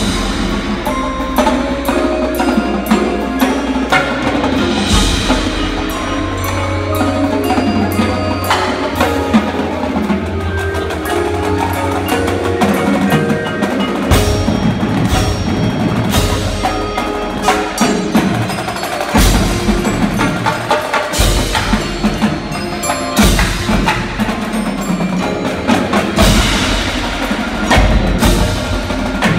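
Indoor percussion ensemble playing: marimbas, vibraphones and other mallet keyboards ringing with snare, tenor and bass drum strokes from the drumline. A low sustained bass note runs under the first half, and sharp accented hits stand out at intervals in the second half.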